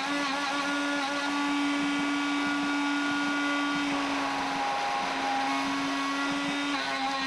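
Bosch 1617 router spindle running at high speed, around 19,000 RPM, with a one-insert carbide end mill cutting 6061 aluminum on a DIY CNC router: a steady whine with a strong low tone and several higher tones over a hiss of cutting noise.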